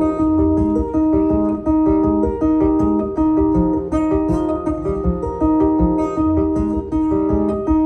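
Acoustic guitar playing an instrumental passage: a steady repeating pattern of picked notes over a recurring low bass note.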